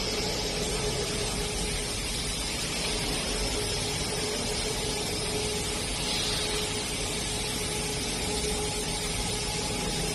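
Fiber laser cutting machine running: a steady hiss with a constant hum tone underneath.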